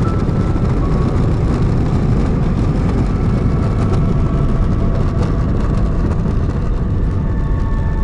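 Steady cabin rumble of an airliner rolling along the ground, heard from a window seat: jet engine and airframe noise, with a few faint steady whining tones above it.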